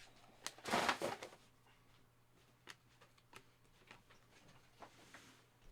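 Faint handling of trading card packs and cards: a brief rustle about a second in, then scattered light clicks and taps.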